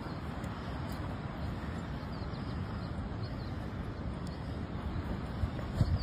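Steady wind on the microphone, with ocean surf beneath it.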